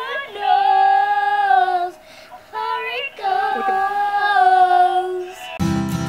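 A young girl singing two long phrases of held, wavering notes, unaccompanied. Near the end an instrumental music jingle starts.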